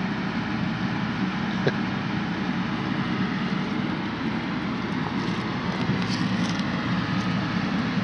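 Vehicle engine running steadily, with one short click a little under two seconds in.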